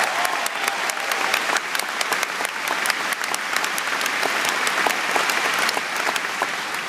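Large crowd applauding: dense, sustained clapping that eases slightly near the end.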